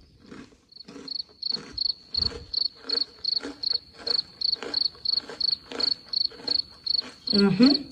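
Cricket chirping in a steady, even rhythm of about three high chirps a second.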